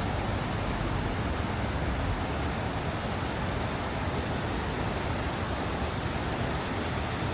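Steady outdoor rushing noise, even throughout, with no distinct events.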